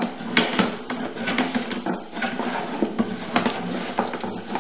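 Sewer inspection camera's push cable being fed down a 4-inch cast iron sewer line, with irregular clicks and knocks over a steady hum.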